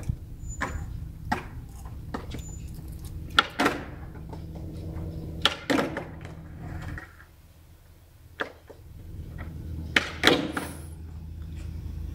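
Plastic oil filter housing cap of a Toyota Prius being unscrewed by hand and drawn out from under the engine: scattered clicks and knocks of plastic on the car's underbody, the sharpest about three and a half, six and ten seconds in, over a low steady hum.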